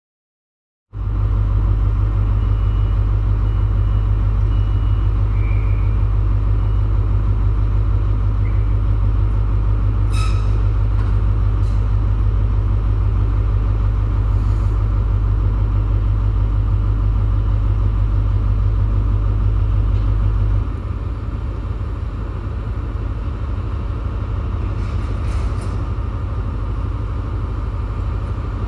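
Class 43 HST power car's MTU diesel engine idling at a standstill, a steady low rumble that drops a little in level about twenty seconds in.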